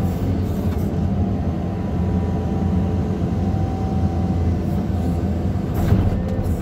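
Caterpillar 320D2 excavator's diesel engine running steadily under load, heard from inside the operator's cab while the arm and bucket work, with a low even hum and a faint held tone above it.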